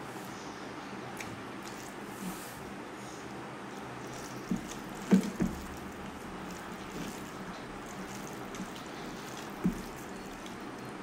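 Wet, squishy eating sounds of rice and fish curry being mixed by hand and chewed, over a steady hiss. A few brief, louder wet sounds come around the middle and one more near the end.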